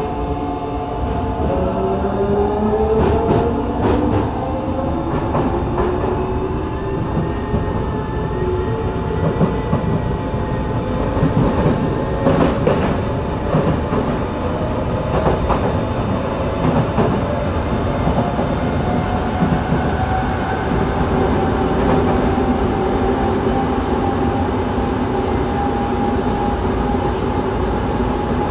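Yokohama Municipal Subway 3000A-series car's Mitsubishi GTO-VVVF inverter and traction motors whining as the train accelerates, several tones rising in pitch over the first ten seconds or so and then a steadier tone that keeps climbing slowly. Underneath runs the rumble of the car with irregular clicks of the wheels over rail joints.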